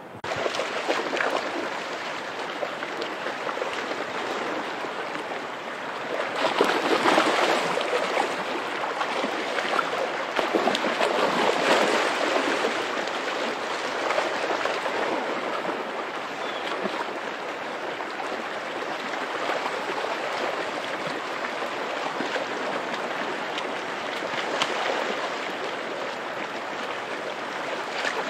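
Shallow river running over rocks, with a dog splashing through the water; the splashing is loudest between about a quarter and halfway through.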